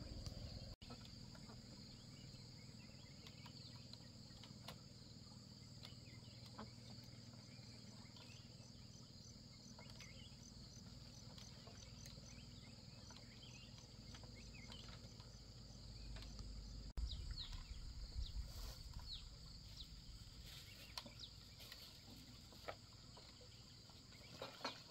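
Faint steady chorus of insects with an even, rapid high pulsing. In the second half a few short knocks and brief falling chirps come in over it.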